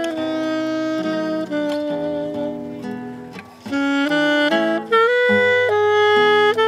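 Saxophone playing a slow melody of long held notes over a chord accompaniment. It softens about three and a half seconds in, then comes back louder.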